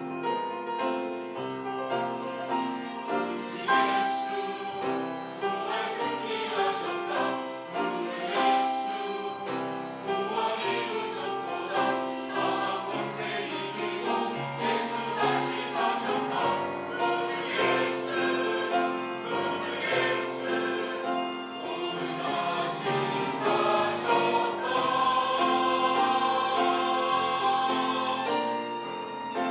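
Church choir singing an Easter anthem, swelling into a louder held chord near the end.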